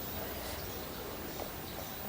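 Steady low background hiss, room tone, with no distinct event.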